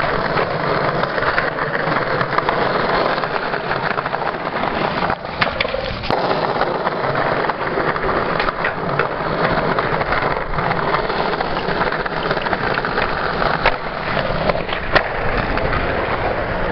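Skateboard wheels rolling over pavement with a steady, dense rolling noise, broken by several sharp clacks of the board, the sharpest near the end.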